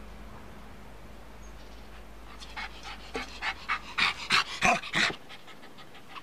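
A dog panting: a run of quick, breathy puffs, about three to four a second, growing louder before they stop suddenly.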